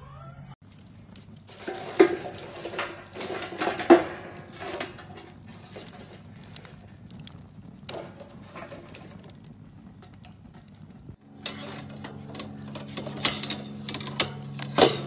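Kitchen utensils knocking, clinking and scraping against cookware while steak is handled, with a few louder sharp knocks; a steady low hum runs under the last few seconds.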